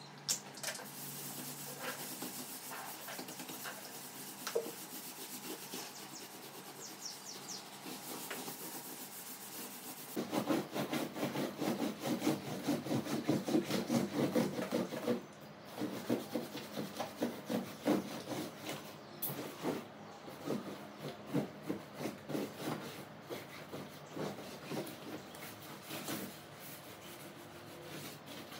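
A cloth in a rubber-gloved hand scrubbing a leather sofa with fast back-and-forth rubbing strokes. The rubbing is quieter at first and becomes louder and more rhythmic about ten seconds in.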